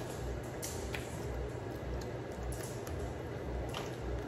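Quiet chewing of boiled blue crab meat, with a few faint clicks of crab shell being handled, over a low steady hum.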